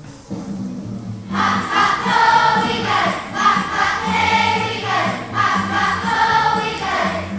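Children's choir singing a Christmas song over instrumental accompaniment; the voices come in about a second in and sing three phrases.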